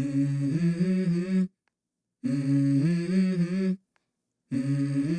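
Tour bus basuri musical horn playing three short melodic phrases, each stepping up in pitch, with brief gaps between them.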